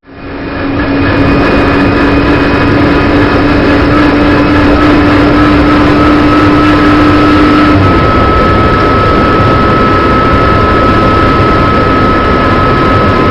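BMW M240i Racing Cup's turbocharged straight-six heard from inside the cockpit, running hard at high revs. Its pitch creeps slowly upward, and the tone changes about eight seconds in.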